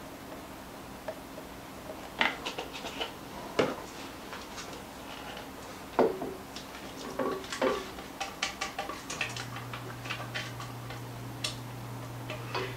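A spatula scraping heavy cream out of a glass measuring cup into a saucepan: scattered clinks and scrapes of the cup and spatula against the pot, the sharpest about six seconds in. A low steady hum starts about nine seconds in.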